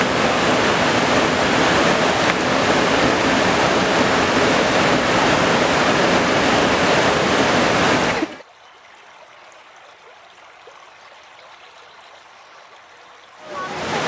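Rushing stream water pouring over rocks: a loud, steady rush. It cuts off abruptly about eight seconds in, leaving only faint background for about five seconds, and the rush comes back near the end.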